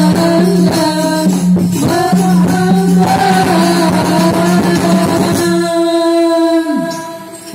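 Live sholawat singing with musical accompaniment over a PA sound system. A long held note about five and a half seconds in glides down and ends, and the music drops away near the end.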